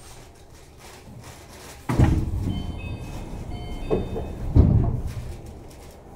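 Tama Toshi Monorail 1000-series car heard from inside, rumbling low. A sudden loud thud comes about two seconds in, with two more knocks about four and four and a half seconds in, and brief high thin tones between them.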